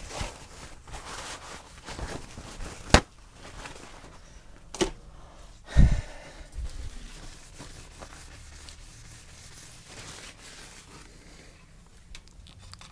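Handling noises: two sharp clicks, about 3 and 5 seconds in, and a dull thump near 6 seconds, with faint rustling between them.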